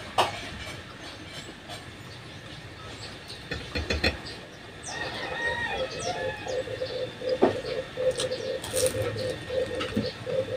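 A rooster crowing about halfway through, followed by a steady pulsing at about four beats a second. A few sharp clicks come now and then.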